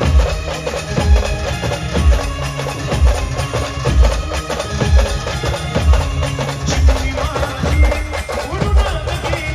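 Indian brass band playing the instrumental interlude of a slow, sad song: a held, bending melody line over a heavy drum beat that strikes about once a second.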